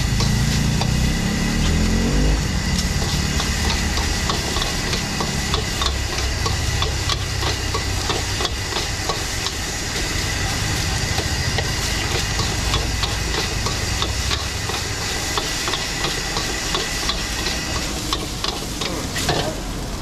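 Spatula rapidly scraping and clinking against a wok as fried rice is stir-fried, with steady sizzling and the low rush of the gas burner underneath. The stirring stops near the end, leaving the sizzle.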